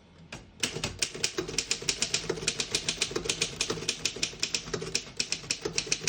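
Typing at a steady pace on a 1923 Underwood No.5 manual typewriter: quick, even clacks of the typebars striking the platen, about seven a second, starting about half a second in.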